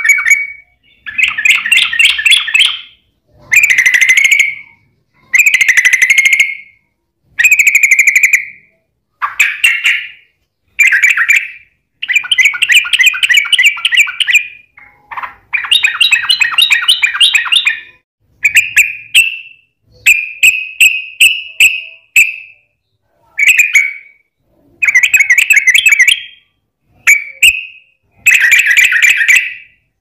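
Yellow-vented bulbul (trucukan) calling in long, rapid chattering phrases of quick repeated notes, each phrase a second or two long, one after another with short gaps.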